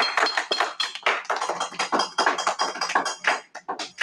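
A small group of people clapping in a fast, uneven patter, thinning out to a few last claps in the final second.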